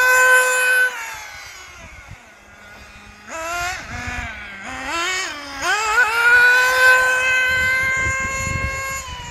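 Kyosho MP9 TKI4 1/8-scale buggy's small nitro engine running at full throttle with a high whine. It drops to a low idle about two seconds in, is blipped up a few times, then revs up and holds high again, fading slightly near the end. The engine is newly bedded in and still being tuned.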